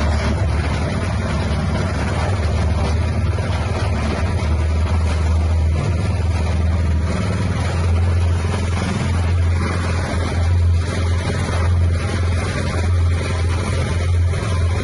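Livestock feed mixer machine running steadily, its motor giving a continuous low hum under a rushing mechanical noise.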